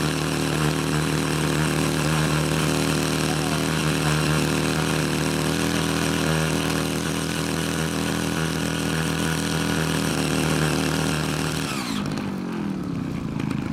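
Ching Yee CY80 mini power tiller's small engine running steadily under load as its rotary tines churn red clay. About twelve seconds in, its pitch falls sharply.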